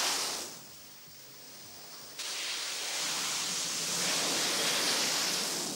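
Harrier jump jet's engine roar, heard as a steady rushing noise. It swells and fades in the first second, then jumps suddenly louder about two seconds in and holds.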